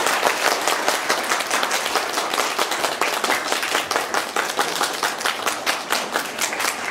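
Audience applauding, a dense patter of many hands clapping that thins out a little toward the end.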